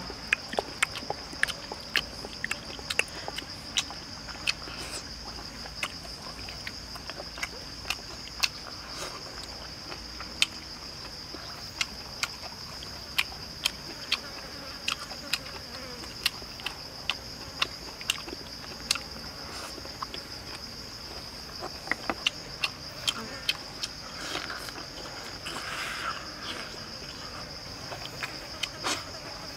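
Insects drone steadily in a high, even band. Over them come frequent sharp clicks and small taps at irregular intervals, from eating with chopsticks from a small cup.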